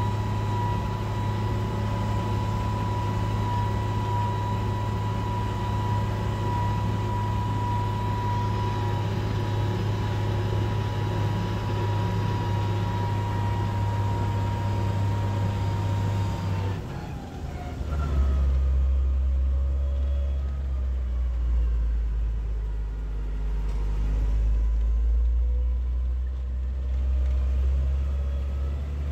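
Mercedes-Benz MB-trac 1300's six-cylinder diesel engine running steadily under way, heard from inside the cab, with a steady high whine over the engine hum. A little past halfway the revs drop: the whine glides down and fades, and the engine runs on at a lower, deeper pitch.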